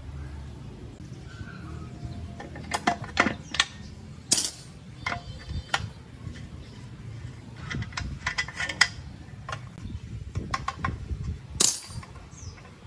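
Irregular metallic clicks, clinks and knocks from the parts of an old, rusty air compressor being handled and unthreaded by hand: fittings, tubing and the pressure switch assembly knocking against the steel tank.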